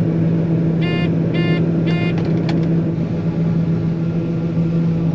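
Farm machinery engine running steadily with a constant hum. About a second in come three short electronic beeps, about half a second apart, then a faint click.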